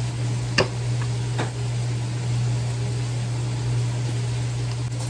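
Steady low kitchen hum with an even hiss under it, and two light clicks about half a second and a second and a half in as a plastic sauce bottle is handled.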